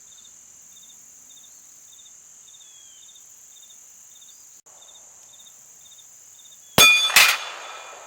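Insects chirping steadily, short chirps about twice a second over a constant high buzz; near the end two loud metallic clangs less than half a second apart, each ringing briefly.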